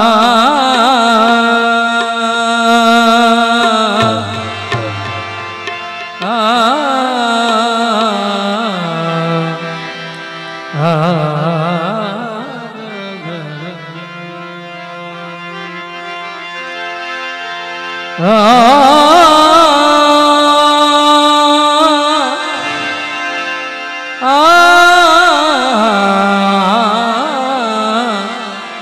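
Bangladeshi Maijbhandari devotional music: harmonium with a man singing long, wavering wordless notes, and tabla and dhol accompaniment. The phrases swell and fall every few seconds, loudest in two long held phrases in the second half.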